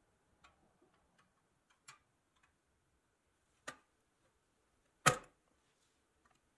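Metal toy truck parts clicking and tapping against each other as the stake bed is handled and fitted onto the chassis. There are about four separate sharp clicks, and the loudest comes about five seconds in.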